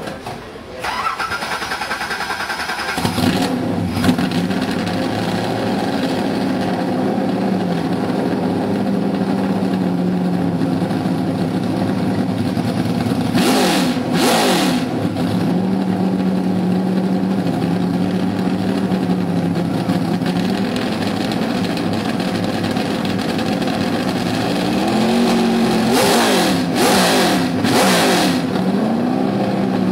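Car engine idling steadily, revved briefly twice: about halfway through and again a few seconds before the end.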